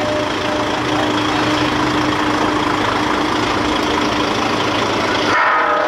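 Heavy engine idling steadily, with a dense mechanical din over a low steady hum. The sound changes abruptly near the end.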